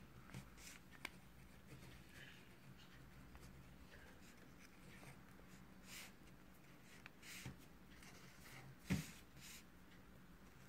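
Faint scratching of a ballpoint pen writing on a sheet of paper, with a single louder knock about nine seconds in.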